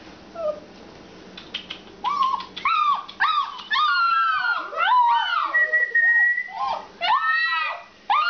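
A litter of Alaskan Malamute puppies howling and yipping together, starting about two seconds in: many short, overlapping cries that rise and fall in pitch, with one long high held note midway.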